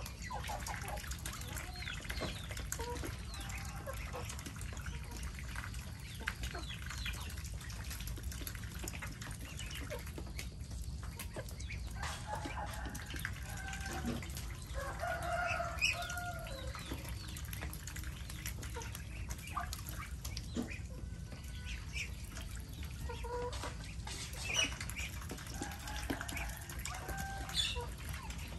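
A mixed flock of chickens and Muscovy ducks, with hens clucking and scattered bird calls throughout. There is a louder run of calls about halfway through and a few more near the end.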